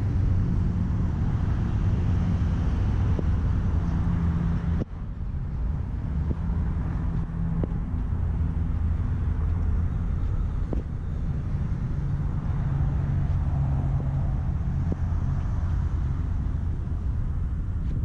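1965 Corvette's L79 327 small-block V8 idling steadily with a low exhaust note, which drops out for an instant about five seconds in.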